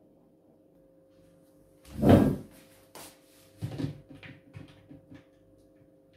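Kitchen handling noises at a stainless steel sink: one loud thump about two seconds in, a click, then a run of lighter knocks and clatter as a plastic colander is moved about in the sink.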